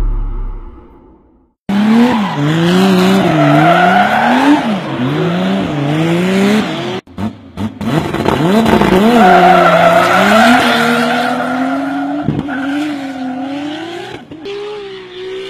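A low boom dies away, then a Nissan Silvia drift car's engine revs up and down about once a second as its rear tyres squeal and skid through a drift. After a short break about seven seconds in, the engine holds a steadier note that slowly fades.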